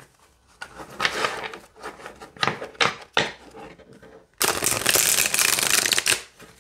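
Tarot cards being shuffled: a few short rustles as the deck is handled and split in two, then about four seconds in a loud table riffle shuffle, the two halves flicking together for nearly two seconds.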